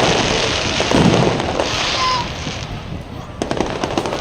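Fireworks going off: a dense run of booming bursts in the first second or so, then several sharp bangs about three and a half seconds in.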